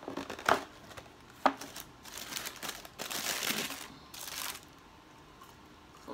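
Takeout food packaging being handled and crinkled, with two sharp knocks near the start followed by a few seconds of rustling.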